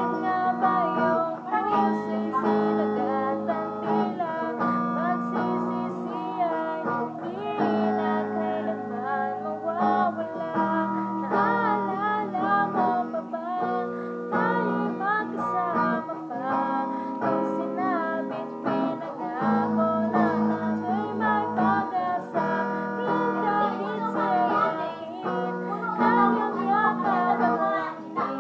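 Electric guitar playing a lead line of notes that bend and waver, over a backing track with a steady bass, in an instrumental passage of a slow pop ballad.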